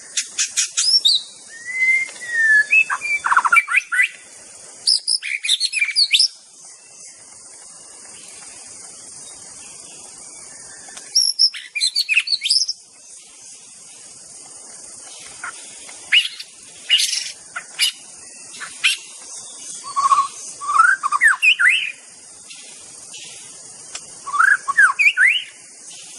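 White-rumped shama (murai batu) singing: bursts of varied, sweeping whistled phrases and quick chattering note runs, broken by pauses of a few seconds, over a steady high hiss.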